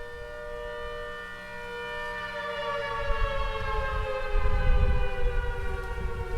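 ACA Hurricane 130 siren heard from a long way off, sounding a steady chord of two tones that begins to slide slowly down in pitch about two seconds in. A low rumble grows underneath in the second half.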